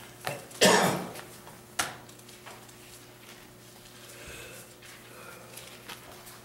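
A person coughs about half a second in, then gives a shorter, sharper cough about a second later. After that there is only a faint steady room hum.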